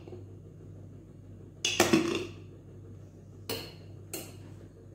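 Kitchenware clattering and knocking while flour is added to a mixing bowl of dough: one louder clatter about two seconds in, then two short knocks about half a second apart near the end.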